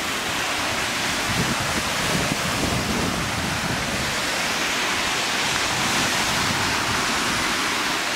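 Wind blowing over the camera microphone, a steady rushing noise with no let-up.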